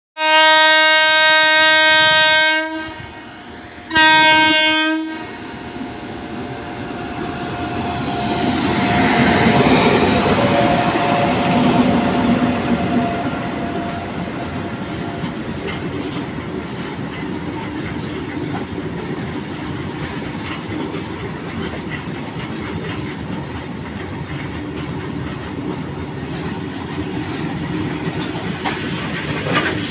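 An Indian electric locomotive's horn sounds twice, a long blast of over two seconds and then a short one, before the goods train passes close by. Its long line of box wagons rumbles and clatters over the rail joints, loudest about ten seconds in as the locomotive goes by, then a steady clickety-clack as the wagons keep rolling past.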